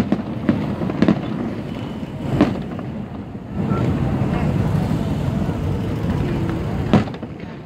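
Fireworks bursting: a few sharp bangs in the first few seconds and one more near the end, with a steady low rumble in between.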